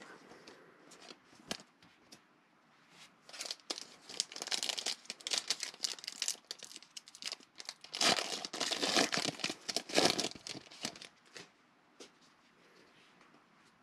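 Foil wrapper of a 2020 Panini Mosaic football card pack torn open and crinkled in the hands, in two loud bouts of crinkling over several seconds, then quieter handling of the cards near the end.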